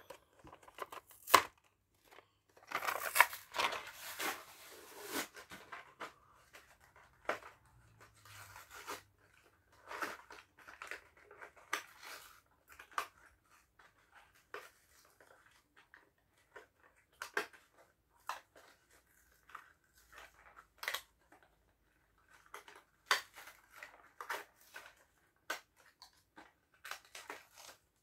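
Plastic blister packaging of a toy-car 3-pack being pried and torn open by hand: irregular crackles, clicks and tearing, with the busiest stretch about three to five seconds in.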